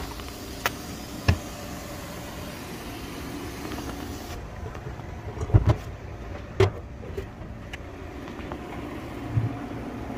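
A few sharp knocks and clanks over a steady low hum, the loudest pair about halfway through.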